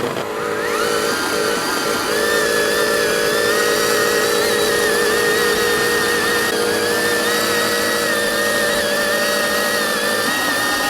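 Small electric motor and gears whining steadily, with a wavering high-pitched tone over a lower hum; the lower hum stops shortly before the end.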